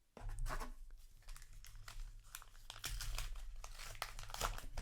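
Paper trading-card booster pack wrapper crinkling and tearing as it is handled and ripped open, in a dense run of irregular crackles.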